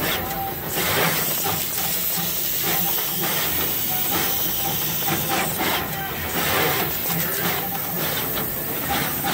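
Philips Topaz pick-and-place machine running: a steady hiss with a rapid, irregular clatter of clicks as the placement head moves and places parts.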